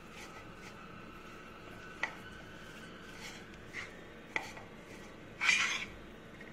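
Metal spoon mixing noodles on a plate: a few light clinks against the plate, then a louder scrape about five and a half seconds in.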